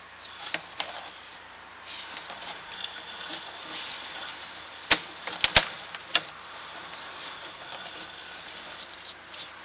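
Sewer inspection camera push cable being fed down a drain line: a steady hiss with a few light clicks, then a quick cluster of sharp clicks and knocks about five seconds in.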